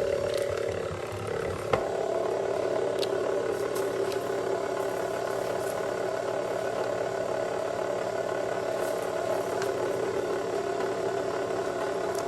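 Steady machine hum, with a sharp click about two seconds in and a few faint ticks.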